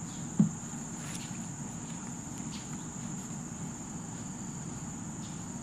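Steady high-pitched drone of insects chorusing, over a low background rumble, with a single short low knock about half a second in.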